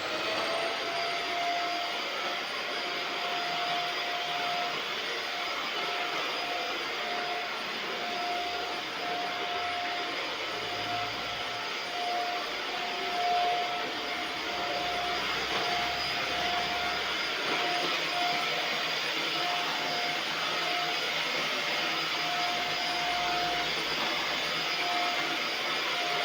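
Vacuum cleaner motor settling to full speed right at the start, then running steadily: an even rushing airflow noise with a constant whining tone.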